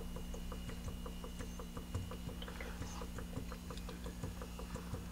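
Rapid, regular popping of carbon dioxide bubbling out of a beer fermenter through its blow-off tube into Star San solution, about six quiet pops a second: the sign of a very vigorous fermentation. A steady low hum runs underneath.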